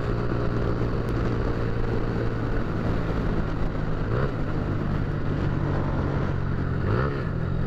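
Honda Titan 150 single-cylinder engine running through a free-flowing Roncar aluminium sport exhaust with its catalytic converter removed, giving a loud, steady exhaust note. The pitch rises briefly about four seconds in and again near the end.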